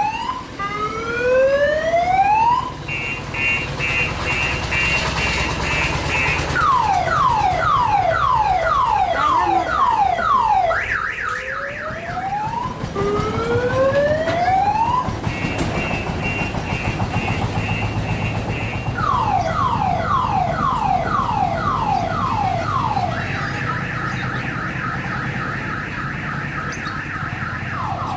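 Electronic multi-tone siren of an odong-odong kiddie ride train, cycling through its effects: rising whoops, rapid high beeping, a run of quick falling sweeps, then a fast warble. The cycle plays through twice, over a low steady hum.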